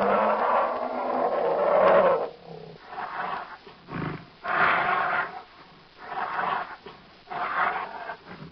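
Spinosaurus roar sound effects: a long roar that ends about two seconds in, followed by several shorter growling roars with brief pauses between them.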